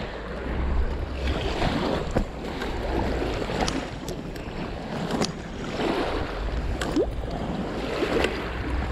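Wind buffeting the microphone over small waves lapping at a rocky, seaweed-covered shoreline, with a few light clicks scattered through.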